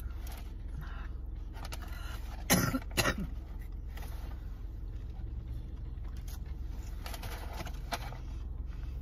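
Steady low hum of a car running, heard inside the cabin. About two and a half seconds in, two loud coughs come half a second apart, the first falling in pitch, from a person with a mouthful of burger.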